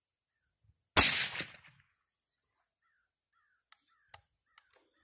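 A single shot from a suppressed .308 Winchester AR-10 rifle about a second in, ringing out and dying away over about half a second. A few faint short clicks follow near the end.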